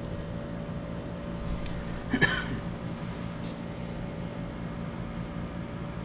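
Steady background hum with a couple of faint clicks, and a brief throat noise from a man about two seconds in.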